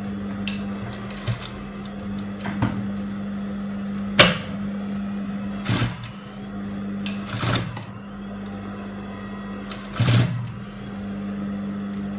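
Sewing machine stitching fabric: a steady hum with rapid needle ticking and a few louder knocks.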